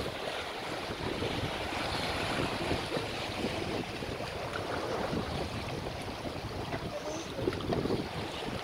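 Steady wind noise on the microphone with water washing along the hull of a sailing yacht under way.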